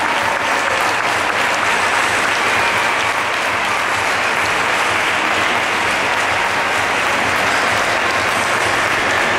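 Audience applauding: dense, steady clapping without a break.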